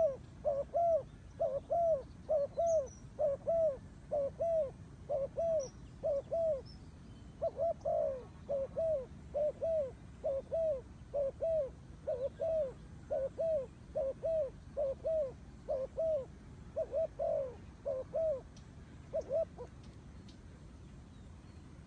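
Turtle dove cooing: a long run of short, identical coos at about two a second, with a brief break partway through, stopping shortly before the end.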